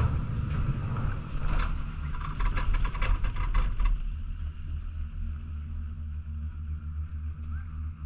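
Chairlift running under a bubble-canopy chair as it leaves the base terminal: a low mechanical rumble, with a run of rapid clattering clicks that stops about four seconds in.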